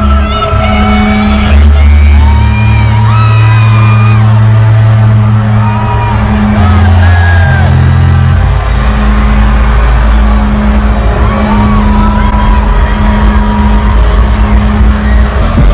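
Live hip-hop concert music played very loud through an arena sound system: deep sustained bass notes that change every couple of seconds, a steady pulsing beat, and a sung vocal line that slides in pitch over them.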